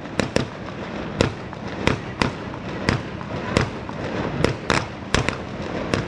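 Ligurian mortaletti, small black-powder mortars, going off one after another: about a dozen sharp bangs at uneven intervals, roughly two a second.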